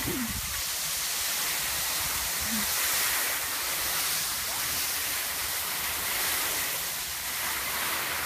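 Steady hiss of skis sliding over snow.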